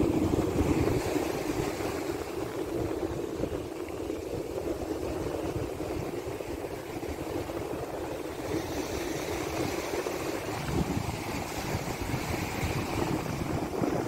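Surf washing up on a sandy beach, with wind buffeting the microphone.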